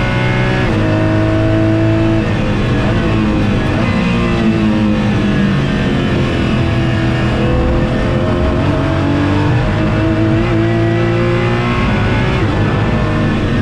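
Porsche GT4's flat-six engine heard from inside the cabin under hard acceleration, its pitch climbing and then dropping sharply at each gear change.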